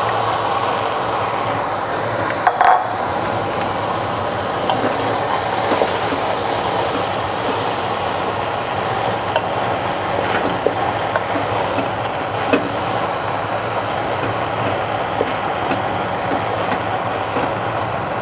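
Steady cooking hiss from the masala in an aluminium pressure cooker on the stove, with light clinks and knocks as soaked black-eyed peas are tipped in and stirred with a wooden spoon. One sharper knock about two and a half seconds in.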